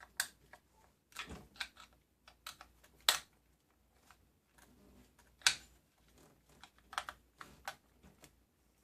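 Scattered, irregular sharp clicks and taps of small tools and hard plastic RC car parts being handled, with the loudest about three seconds in and another about five and a half seconds in.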